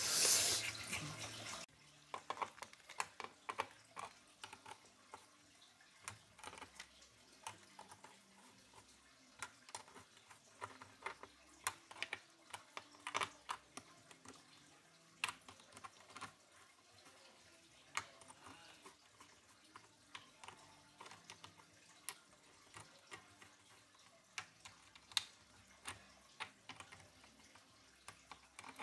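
Faint, irregular light clicks and taps, scattered a few at a time over a low hiss, after a short burst of noise at the very start.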